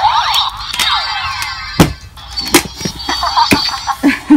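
Electronic sound effects from a Barbie Star Light Adventure hoverboarder doll's built-in speaker: sweeping sci-fi whooshes with rising and falling tones, mostly in the first second and a half, followed by a few sharp knocks of the toy being handled, the loudest about two seconds in.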